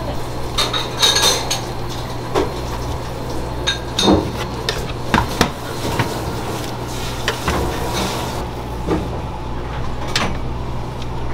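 Kitchen clatter: metal utensils and pans clinking and knocking at irregular moments over a steady low hum.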